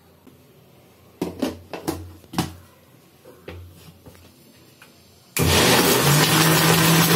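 Plastic knocks and clicks as the jar of a Philips mixer-grinder is handled and seated on its base. About five seconds in the motor starts abruptly and runs loudly, blending a jar of milkshake.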